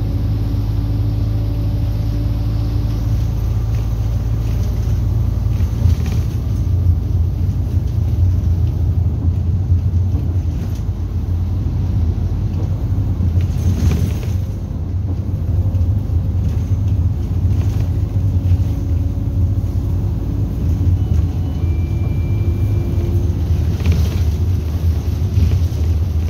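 Minibus engine and road noise heard from inside the passenger cabin while driving: a steady, loud low drone and rumble.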